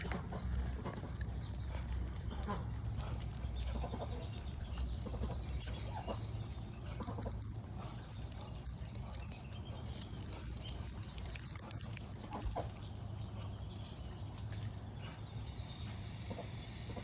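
Ducks feeding at close range: scattered soft pecking and nibbling sounds from their bills with occasional brief calls, over a steady low rumble.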